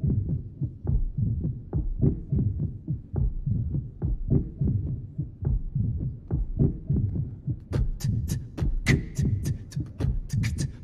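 A deep, steady heartbeat-like thumping pulse. About eight seconds in, beatboxing joins it: sharp mouth-made clicks and snare sounds layered over the beat.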